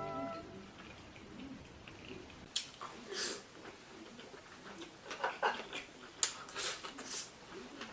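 A person eating close to the microphone, with chewing and a few short clicking and crunching bursts scattered through a quiet stretch. A bit of music fades out at the very start.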